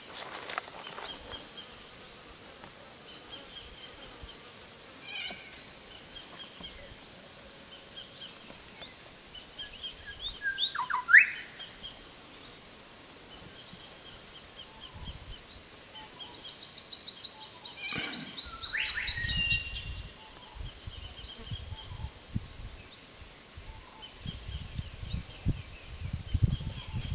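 Wild birds chirping and calling: a short trill repeated again and again, a loud rising whistle about eleven seconds in, and a long high whistle a few seconds later. A low rumble comes in during the last third.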